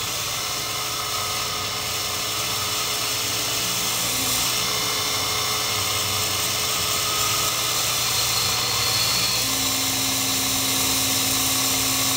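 Miniature Sherline CNC cam grinder on its last grinding pass along a small camshaft: a steady motor hum and hiss, with a steady low tone joining about three-quarters of the way through.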